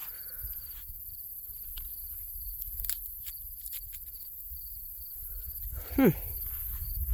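Insects chirping in a steady, pulsing high trill over a low outdoor rumble, with a few faint ticks in the middle. About six seconds in, a short, loud voice-like sound falls quickly in pitch.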